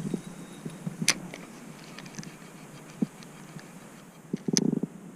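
Scattered sharp clicks and knocks, the loudest about a second in and just before the end, with a brief rattle of rapid ticks near the end.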